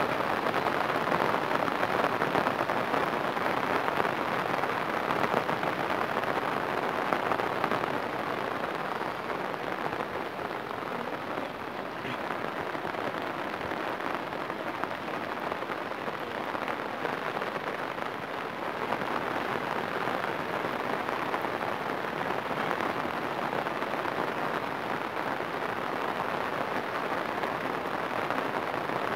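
Heavy rain falling on floodwater: a steady dense hiss, easing slightly in the middle.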